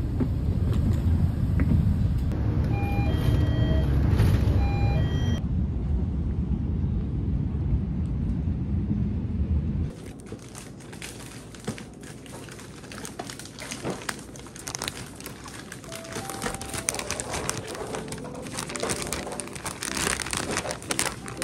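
Low, steady rumble inside a moving commuter vehicle, with a short run of beeping tones sounding twice a few seconds in. About ten seconds in it cuts to quieter desk sounds, taps, clicks and crinkling of small objects being handled, with soft music notes coming in near the end.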